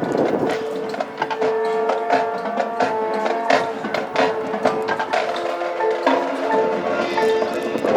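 High school marching band playing: sustained wind chords over busy percussion with many sharp wood-block-like strikes and mallet notes.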